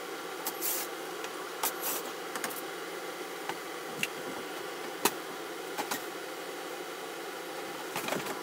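A steady mechanical hum with scattered sharp clicks and short knocks as a cordless drill backs the screws out of an RV range and its metal parts are handled and shifted.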